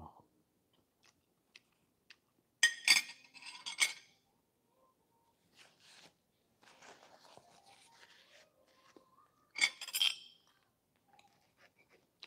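Metal cutlery clinking and scraping against a ceramic plate in two short bursts, about three seconds in and again about ten seconds in, with faint rustling in between.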